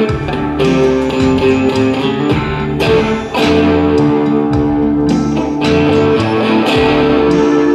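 Electric guitar played live: chords struck every second or two and left to ring, with held notes sounding on between the strikes.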